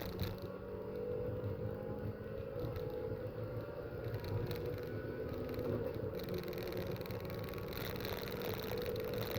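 Race car engines running at speed on a circuit: a steady engine note that slowly rises in pitch, over a low rumble.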